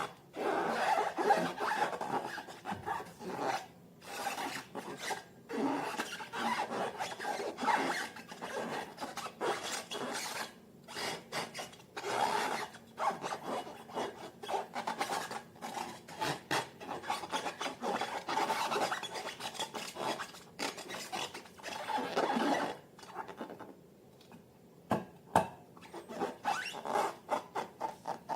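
Slime being handled and mixed by hand: a continuous run of irregular rubbing and crackling noises, thinning to scattered clicks near the end.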